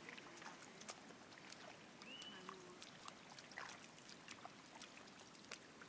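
Faint splashing and squelching of feet wading through shallow water and wet mud, with scattered clicks and one short high call about two seconds in.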